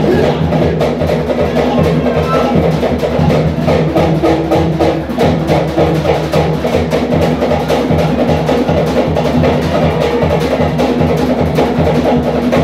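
Live Cook Islands drum-dance music: a fast, even rhythm of wooden knocks from slit log drums over deeper drum beats.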